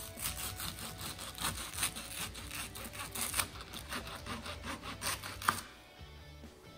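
Kitchen knife sawing back and forth through toasted sandwich bread on a wooden cutting board: a quick run of crisp, scratchy crunching strokes. A sharp tap comes about five and a half seconds in, and then the cutting stops.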